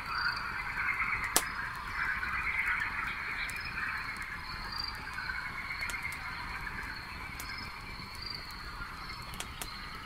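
Campfire crackling with scattered sharp pops of burning wood, one loud pop about a second and a half in, over a steady dense chorus of frogs calling. A short high chirp repeats about once a second.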